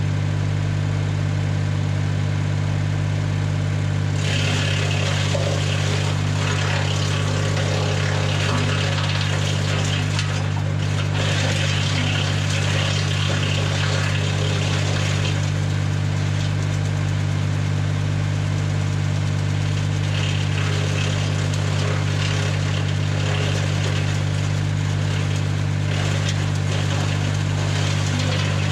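Tractor engine running at a steady speed, driving a BX52 PTO wood chipper, with a constant low drone. From about four seconds in, a rushing, rattling noise rises over it in stretches and drops away again.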